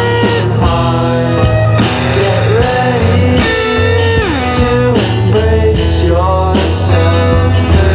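Instrumental rock music: a guitar playing a lead line with sliding, bending notes over a steady bass and drums.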